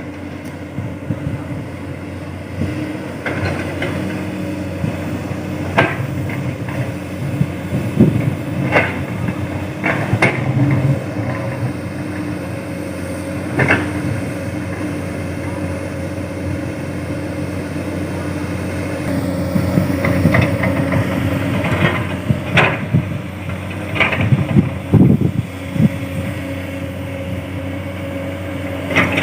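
Komatsu excavator's diesel engine running steadily, with sharp knocks and clanks every few seconds as the bucket works hard rocky soil and drops it into a dump truck bed.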